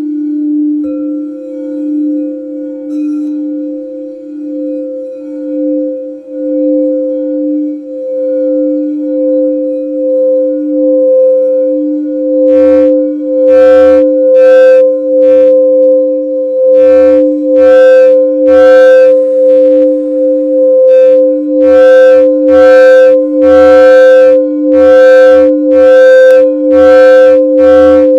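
Crystal quartz singing bowls ringing together as a sustained two-note chord, a lower tone joined by a higher one about a second in. From about halfway through, the sound swells and pulses roughly once a second with a brighter, buzzing edge, and grows louder.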